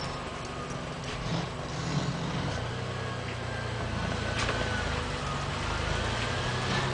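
Car creeping along slowly with a rubbing noise from the passenger-side front wheel over the steady low engine hum; a faint thin squeal slowly rises in pitch in the second half, and there is a single click about four and a half seconds in. The noise is a sign of a fault at that front wheel, which the driver calls definitely not a good sound.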